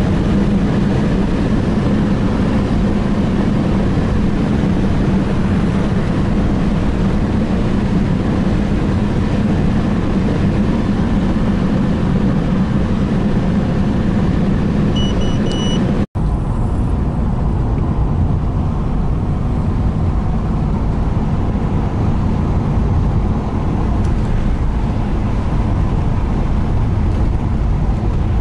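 Steady engine and tyre road noise inside a moving car's cabin. About halfway through it cuts out for an instant, then carries on duller and lower.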